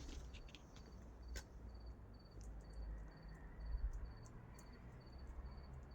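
A cricket chirping, short high chirps repeating about twice a second, over a faint low background rumble.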